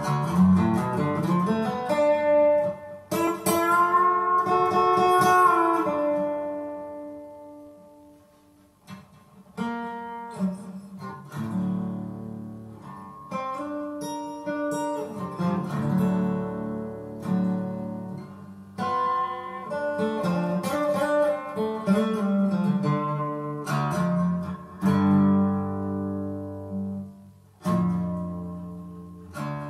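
Solo acoustic guitar with no voice. A strummed chord about three seconds in rings out and fades for several seconds. From about ten seconds in, chords follow one another in a slow, even rhythm.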